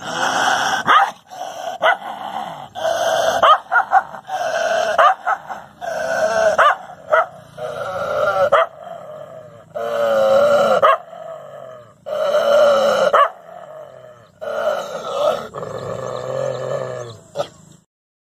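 A dog barking at its own reflection in a mirror: a run of drawn-out barks, each up to about a second long with a wavering pitch, coming every second or two and stopping just before the end.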